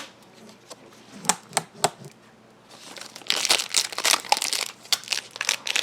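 Cardboard and plastic packaging being pulled open by hand with a pull tab. There are sharp crackles and clicks at first, then from about three seconds in a stretch of dense crinkling and rustling.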